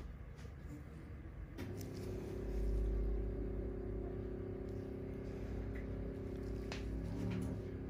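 A steady mechanical hum, like a motor or engine running, sets in about a second and a half in. It swells briefly with a low rumble and is marked by a few faint clicks.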